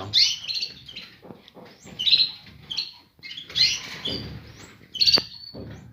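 Small cage birds chirping in short high bursts, several times, with one sharp click about five seconds in.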